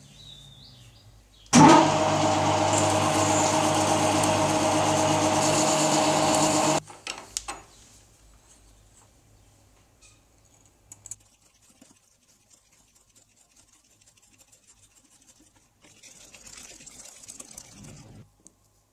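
An electric workshop power tool runs steadily at a constant pitch for about five seconds, switched on and off abruptly.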